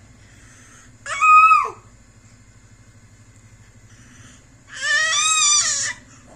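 A baby's high-pitched squeals, twice: a short one about a second in, then a longer wavering one near the end.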